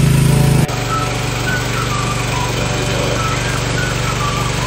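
Steady hum of a small engine running. About half a second in it cuts abruptly to a quieter hum of the same kind, with a few short high chirps over it.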